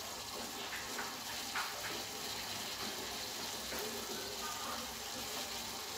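Faint steady sizzle from a pan of zarda sweet rice cooking in ghee and sugar syrup on low heat. A few faint ticks in the first couple of seconds as cashew nuts are dropped onto the rice.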